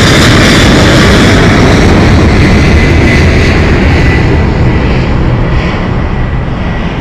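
Boeing 777-300ER's GE90-115B turbofans at takeoff power passing directly overhead: a loud, deep jet roar with a high engine whine over it. It begins to fade about four and a half seconds in as the jet climbs away.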